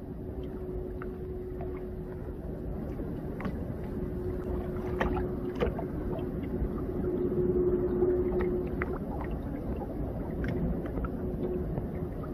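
Small river waves lapping and knocking against a boat's hull, over a low wind rumble and a faint steady hum.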